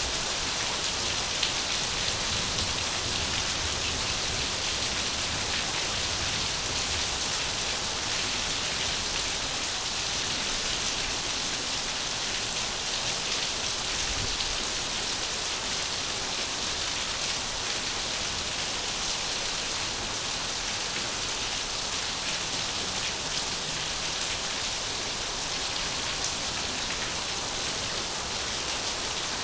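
Steady rain falling, an even hiss of drops that stays level throughout, with no thunder or other sounds.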